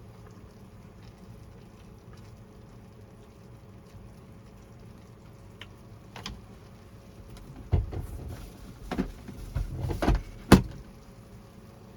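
A low steady hum, then a run of knocks and thumps from about six seconds in, the loudest about ten seconds in.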